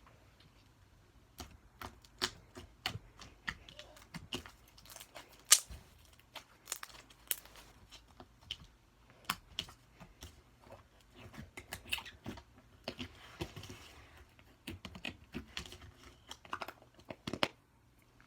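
Slime being squeezed and poked by hand, making irregular sharp pops and clicks, with a short soft crackling stretch about thirteen seconds in.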